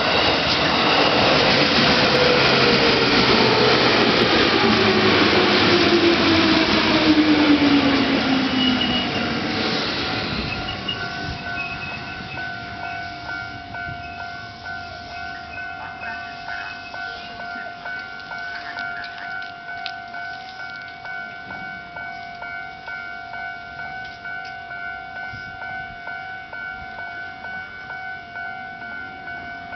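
A Nambu Line electric train passes over a level crossing, loud for about the first ten seconds with a falling whine, then fading away. Under it and after it the crossing's old-style electronic warning bell keeps ringing in a steady, even rhythm.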